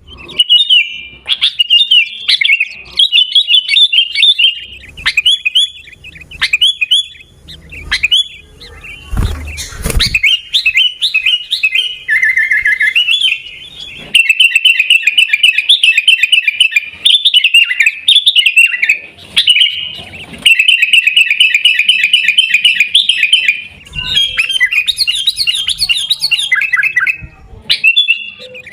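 Sooty-headed bulbul (kutilang) singing in rapid, chattering runs of chirps, nearly continuous with short pauses. There is a brief low rumble about a third of the way through.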